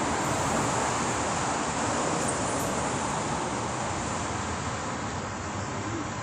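Steady road traffic noise from the street alongside, an even rushing hum that eases off slightly in the second half.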